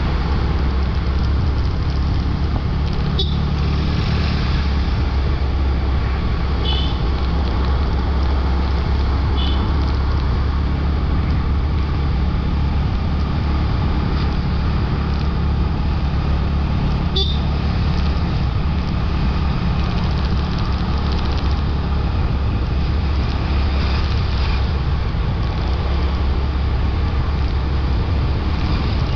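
Motorbike engine running steadily under way, with road and wind noise from the ride. A few short high beeps sound through it, and there is a sharp click a few seconds in and another just past halfway.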